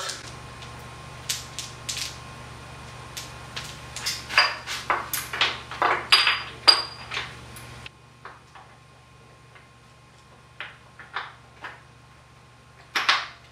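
Metal roller chain clinking and rattling as a new motorcycle drive chain is fed around the front sprocket by hand: a string of sharp metallic clicks, busiest about four to seven seconds in, then sparser.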